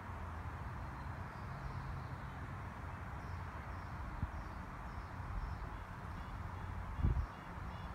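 Breeze rustling through the leaves of tall trees, a steady hiss with a low rumble of wind on the microphone and a single low thump about seven seconds in. Faint high chirps repeat in the background.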